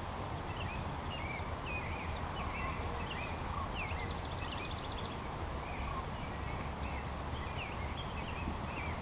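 Small birds chirping and calling over a steady low rumble, with a quick run of short, evenly spaced high notes about four seconds in.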